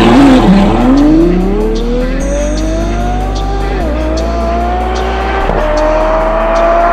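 Ferrari F12's V12 engine through an aftermarket Fi valved catback exhaust with catless downpipes, accelerating hard. A quick rev rises and dips near the start, then the pitch climbs steadily through two upshifts, each a sudden drop in pitch, about four and five and a half seconds in.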